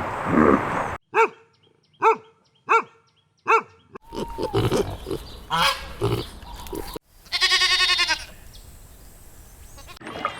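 A run of separate animal calls: four short, sharp barks about two-thirds of a second apart, a noisier stretch of mixed animal sounds, then one long bleat with a quavering pitch about seven seconds in.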